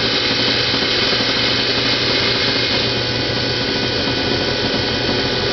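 Waste motor oil processor running: an electric motor belt-driving a power steering pump that pushes used engine oil into an oil centrifuge as it starts to spin. A steady mechanical whir with several steady tones.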